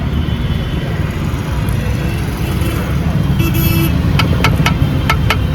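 Mahindra Bolero BS6 diesel engine idling steadily. From about four seconds in, a rapid, regular clicking joins it, about four to five clicks a second.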